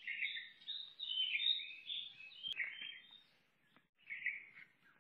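Birds chirping in quick, high calls, broken by about a second of silence around three seconds in.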